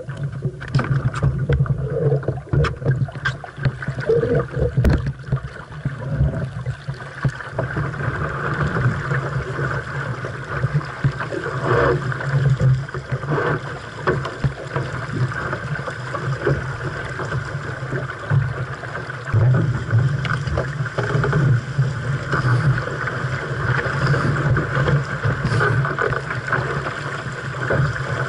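A 470 sailing dinghy under way in a fresh breeze: water rushing and gurgling along the hull, with wind noise and frequent short knocks and splashes, most of them in the first few seconds.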